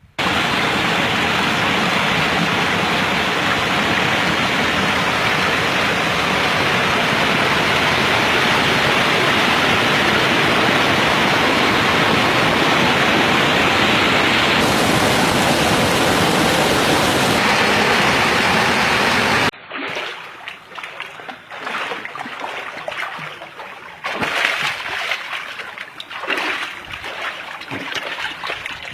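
Rushing water of a spring-fed stream or small waterfall, a loud, steady roar. About two-thirds of the way in it cuts suddenly to a quieter, uneven splashing and gurgling of water.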